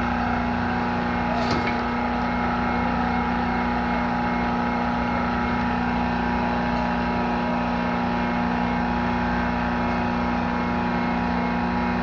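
A motor or engine running at a steady speed, a constant hum with one faint click about one and a half seconds in.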